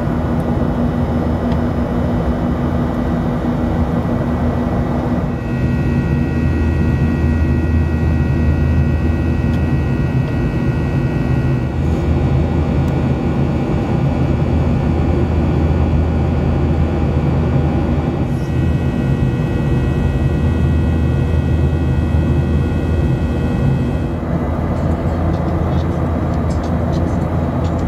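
Steady jet engine roar heard inside the cabin of a Boeing 737-800, from its CFM56-7B turbofans, with a deep rumble and a thin high whine over it. The tone of the whine changes abruptly a few times.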